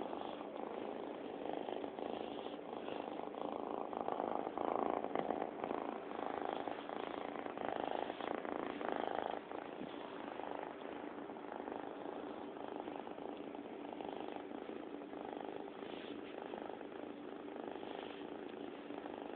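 A domestic cat purring steadily, close to the microphone. The purr swells and eases in turns of about a second.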